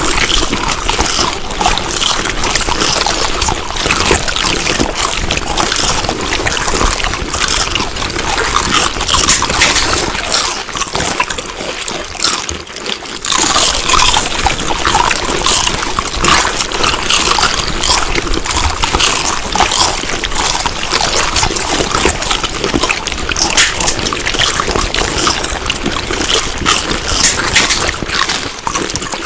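Close-up chewing and eating sounds: a dense run of small wet clicks and crackles from a mouth working on food, easing off briefly about twelve seconds in before picking up again.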